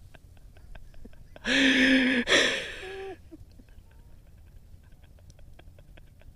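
A person's loud, breathy vocal outburst about a second and a half in, lasting about a second and a half, amid faint scattered clicks of fishing rods being handled on a boat deck.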